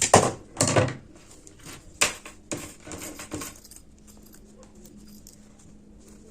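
A zipper being handled and cut shorter with scissors: a few sharp clicks and short rustles, loudest in the first second and again at about two seconds in.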